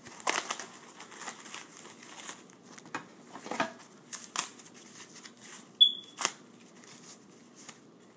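Styrofoam packing being pulled off and handled: irregular rustling, crinkling and light clicks, with one short high squeak about six seconds in.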